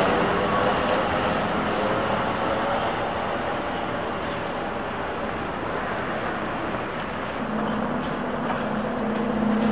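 City buses passing on a street, with engines running and traffic noise. A steady engine drone comes in strongly about seven and a half seconds in as an articulated bus goes by close at hand.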